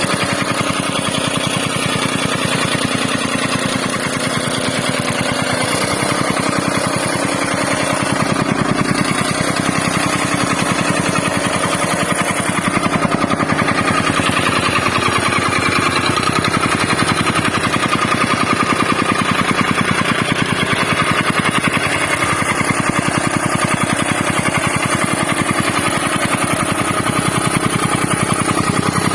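Tamping rammer (stamper soil compactor) running steadily, its small engine driving the foot in a rapid, even rhythm of blows on the soil.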